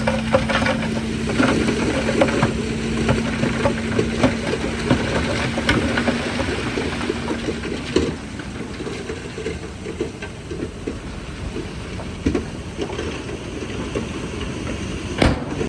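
Heavy diesel earthmoving machinery running, with frequent short knocks and clatter of stone and dirt being moved. A steady hum drops out about halfway through, and one sharp knock comes near the end.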